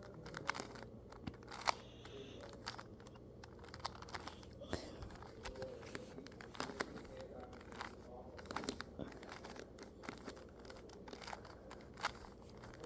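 2x2 Rubik's cube turned by hand through the T-perm algorithm: a faint string of irregular plastic clicks and rattles as the layers turn.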